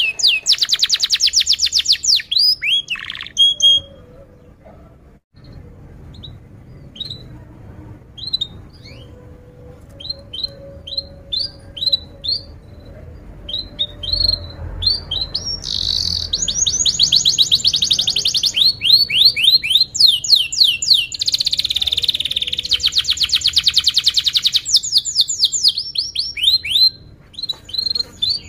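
Domestic canary singing: a fast trill at the start, then a run of separate short chirps, then long rapid trills from a little past halfway on.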